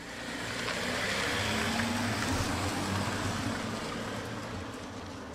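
Car towing a caravan driving past on asphalt: engine and tyre noise build up, then slowly fade as it pulls away.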